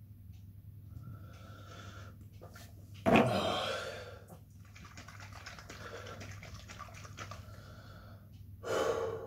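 A man breathing hard after chugging hot sauce, reacting to the burn and stomach cramps. There is a loud, sudden breath about three seconds in that fades over most of a second, and a shorter one near the end.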